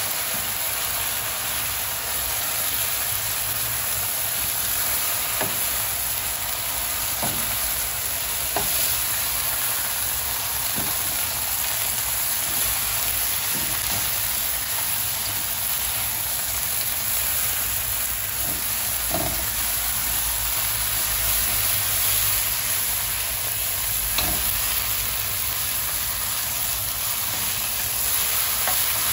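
Egg noodles and lobster tails sizzling as they are stir-fried in a wok, with a steady frying hiss and a few light knocks of the utensils against the pan as the food is tossed.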